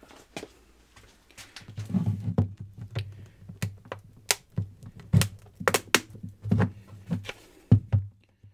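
Small screwdriver prying at the parting line of a 3D-printed plastic injection mold, its tip clicking and scraping against the plastic, with dull knocks as the mold is handled on its edge on the bench. It is an irregular run of sharp clicks and thuds. The mold halves are stuck together after the first shot.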